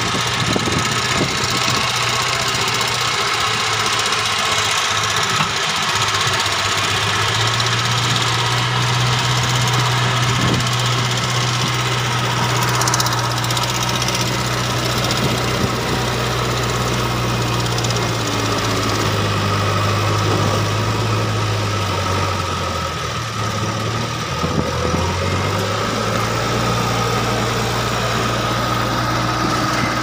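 JCB backhoe loader's diesel engine running steadily under work while the front loader bucket pushes loose laterite stone blocks. The engine note dips briefly about three-quarters of the way through.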